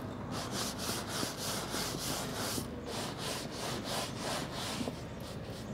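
A stiff brush scrubbing back and forth on the Hypalon tube of an inflatable dinghy, in quick rasping strokes about three a second, working old glue off with contact cleaner.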